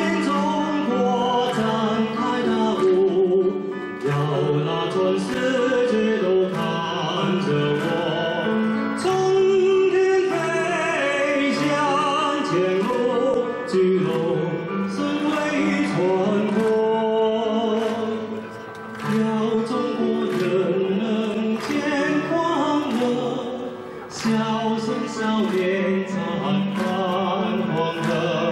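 Male singer performing a patriotic song through the hall's microphone and speakers, with instrumental accompaniment.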